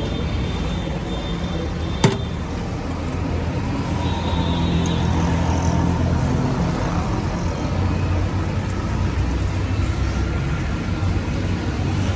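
Steady street traffic noise with a low engine hum, and one sharp knock about two seconds in.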